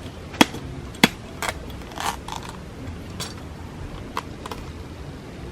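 A cocoa pod being struck open: a series of sharp knocks and cracks, the two loudest within the first second or so, then lighter ones spaced out over the next few seconds.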